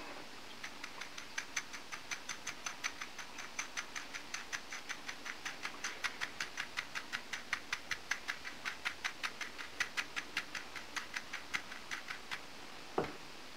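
White ceramic bowl of breadcrumbs shaken back and forth by hand to coat an egg-dipped slice: an even run of light ticks, about four or five a second, as the slice and crumbs knock against the bowl. A single knock near the end as the bowl is set down on the table.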